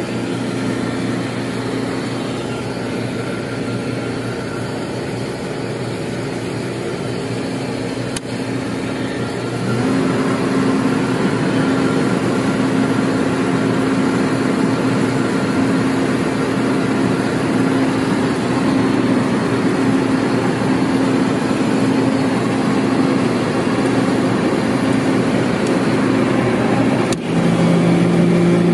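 Carrier reefer container refrigeration unit running, a steady machine hum from its fans and compressor. About ten seconds in it gets louder and its pitch shifts. Near the end there is a brief drop, and then it settles on a different tone.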